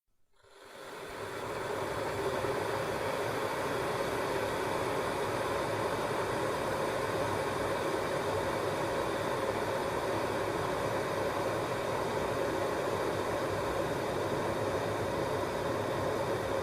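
Water heating and boiling in an electric kettle: a steady rushing rumble that swells up over the first second or two, then holds even.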